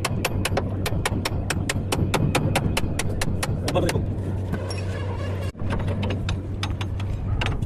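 Fast, regular sharp taps, about five or six a second, over a steady low hum; the tapping thins out about halfway through, and the sound cuts out for an instant soon after.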